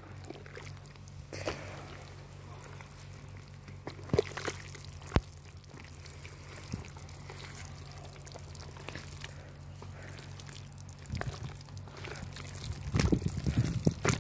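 Wet finishing plaster being stirred by hand in a plastic tub, with sloshing and squelching and a few short knocks against the tub. The stirring gets louder and busier near the end.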